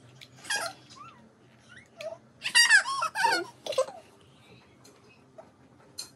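A toddler's high-pitched squealing vocal sounds, without words, in a cluster about two and a half seconds in, with a few short clicks of large plastic building blocks.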